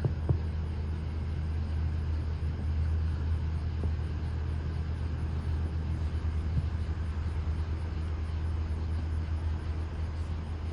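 Steady low rumble of a car heard from inside the cabin, with a faint click or two.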